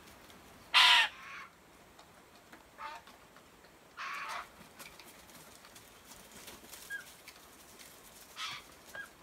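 White-winged choughs giving short calls: the loudest about a second in, then a few weaker ones spread over the following seconds.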